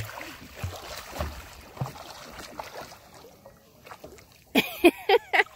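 Kayak being paddled on calm water: paddle strokes and water moving along the hull, with a few soft knocks. A few loud short bursts come near the end.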